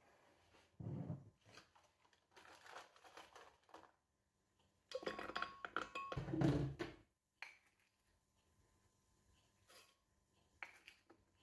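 Faint kitchen handling sounds as hands drop banana pieces into a glass blender jug and handle a glass jar of rolled oats: a dull thump about a second in, light rustling, then a louder stretch of knocks and clinks against glass, with a few small clicks near the end.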